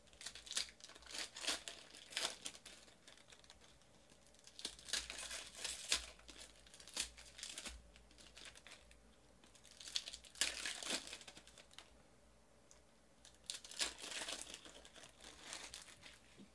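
Plastic foil trading-card pack wrappers being torn open and crinkled, in four bunches of rustling with short pauses between.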